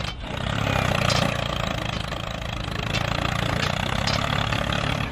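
A small engine running steadily with a fast, even firing beat, as on a miniature homemade tractor.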